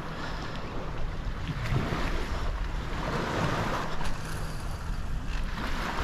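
Wind blowing over the microphone with a steady rumble, over small waves washing in the shallows.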